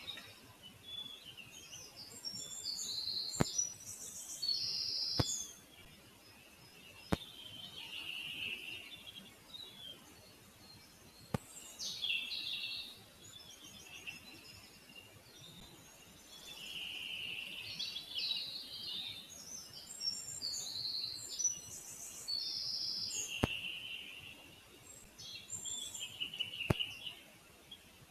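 Small forest songbirds singing, with bursts of high, quick chirping phrases every few seconds, and a few sharp clicks in between.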